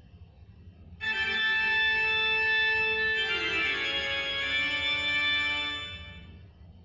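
Short organ-toned keyboard jingle. A sustained chord comes in about a second in, shifts to a second chord around three seconds in, and fades out near six seconds.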